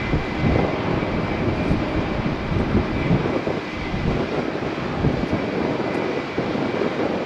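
An Airbus A380's four jet engines running steadily at taxi power, a continuous rumbling noise with a faint high whine that fades out over the first couple of seconds.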